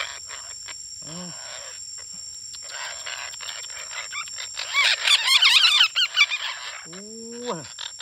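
Green parakeets screeching, a rapid burst of harsh, chattering calls about five seconds in that lasts around a second and a half. A short low voice-like call sounds about a second in and a rising one near the end.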